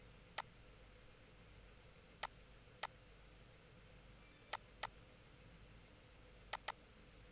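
Computer mouse clicking about seven times, single clicks and quick double-clicks, over a faint steady hiss.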